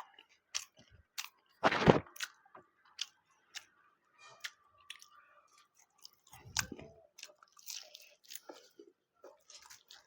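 Close-up mouth sounds of a person chewing and biting into tandoori chicken and laccha paratha: a run of sharp wet clicks, with a louder noisy bite about two seconds in and another near seven seconds.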